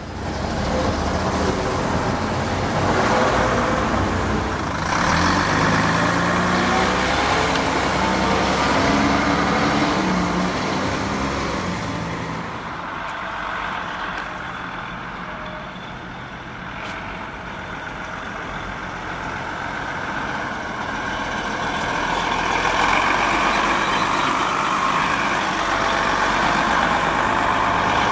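Diesel bus engines: an engine runs with its pitch rising and falling over the first half, the sound drops back in the middle, then a coach's engine grows louder near the end as the coach pulls round past.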